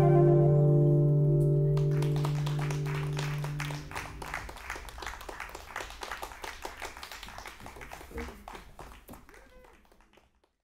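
The final chord of an acoustic choro ensemble on nylon-string guitars and double bass rings out and dies away over a few seconds. A small audience claps, starting about two seconds in and fading out near the end.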